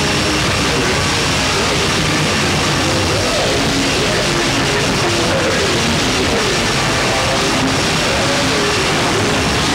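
Loud, distorted heavy-metal-style music: a dense, unbroken wall of noise with wavering tones running under it.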